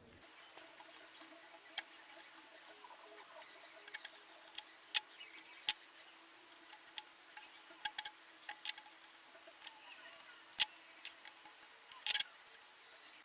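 Scattered sharp clicks and taps, a short cluster of them near the end, over a faint steady hum that stops shortly before the end.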